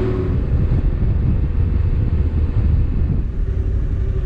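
Motorcycle on the move, heard as heavy wind noise on the bike-mounted microphone over a low engine and road rumble. About three seconds in the rumble eases slightly and a steady hum comes through.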